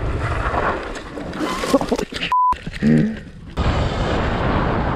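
Wind on the microphone and trail rumble from a Sur-Ron X electric dirt bike being ridden along a dirt trail. A short steady bleep tone comes about halfway through, with a brief shout around it.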